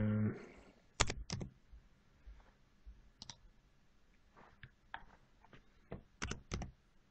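Computer mouse and keyboard clicks: about nine sharp separate clicks, some in quick pairs, after a brief steady hum at the very start.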